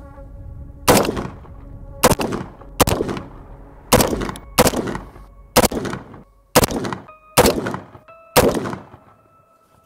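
5.56 AR-15 with a 12.5-inch barrel firing nine single shots in slow semi-auto, about one a second, each with a short echo, as a velocity string over a chronograph.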